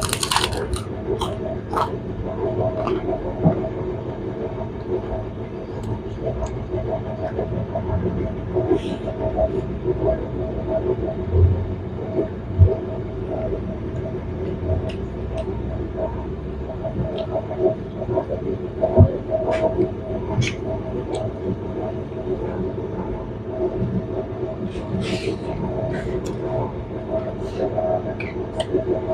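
A steady mechanical hum with a fluttering pulse, under scattered short clicks and chewing from someone eating a meal.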